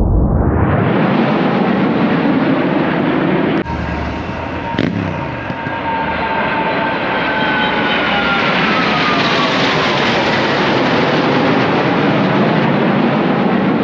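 Red Arrows BAE Hawk jets flying past, a loud jet rush with a whine that falls in pitch as they go by.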